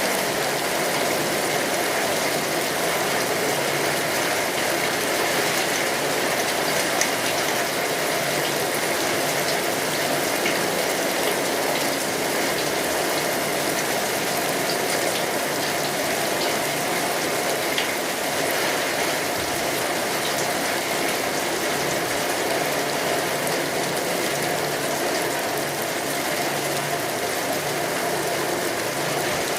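Heavy rain falling steadily, a dense even hiss with fine patter of drops.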